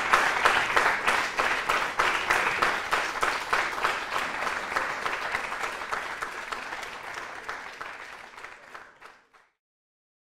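Audience applauding, many hands clapping together, fading steadily until it stops about nine and a half seconds in.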